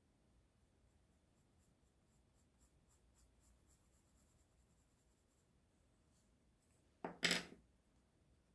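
Faint, scratchy drawing strokes, a run of short quick strokes in the first half. About seven seconds in there is one sudden louder bump or rustle lasting about half a second.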